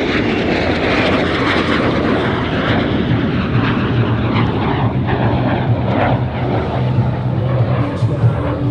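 Jet noise from a Canadair CT-133 Silver Star's Rolls-Royce Nene 10 turbojet as the aircraft flies its display. The pitch falls over about the first second as the jet passes, then the noise holds steady.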